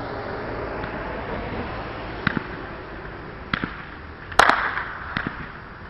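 Consumer fireworks going off: a few scattered sharp pops over a steady hiss, with one loud bang about four and a half seconds in that trails off into a crackling hiss.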